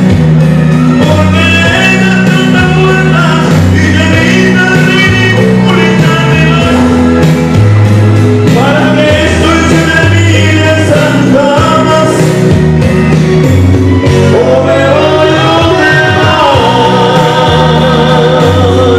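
Music: a man singing a melody through a handheld microphone, with sustained, bending notes over an instrumental accompaniment with a moving bass line.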